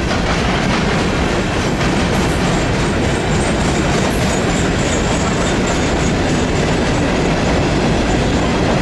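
Empty Norfolk Southern coke hopper cars of a freight train rolling past: a loud, steady noise of steel wheels running on the rails.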